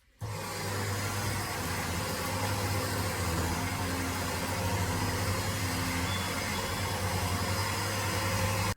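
Vacuum cleaner running steadily: an even hiss over a low hum, starting abruptly.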